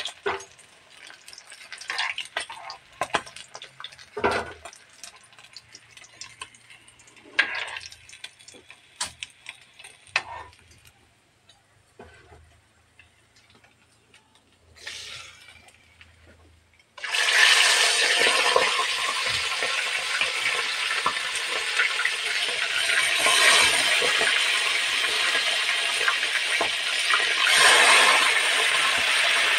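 A metal ladle clinks and scrapes against an aluminium wok in a few scattered knocks while fried fish heads are lifted out of the oil. About 17 seconds in, a loud sizzle starts suddenly as raw fish-head pieces go into the hot oil, and it keeps going steadily.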